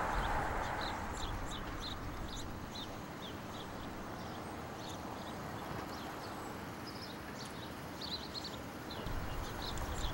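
Small birds chirping in quick, scattered bursts over steady city street noise, with a low traffic rumble building near the end.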